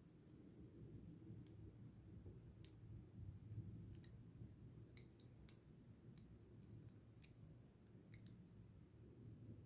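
Small, sharp clicks and taps, about a dozen at irregular intervals, from small tools and watch parts being handled during a watch battery change. The clicks are loudest about halfway through and near the end.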